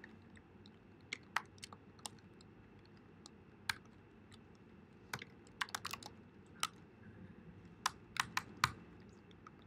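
Typing on a computer keyboard: scattered key taps with a few quick runs of several keys.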